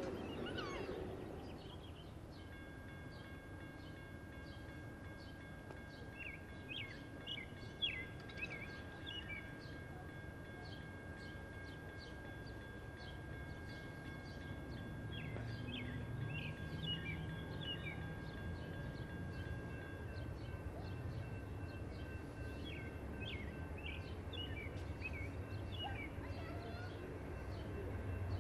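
Songbirds chirping in short repeated phrases over a faint low rumble from an approaching Amtrak train, which grows a little louder near the end. Faint steady high tones sound through much of it.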